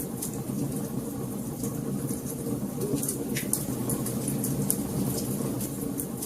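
Wood fire burning in a fireplace: a steady low rumble of flames with frequent irregular crackles and pops, one a little sharper about three and a half seconds in.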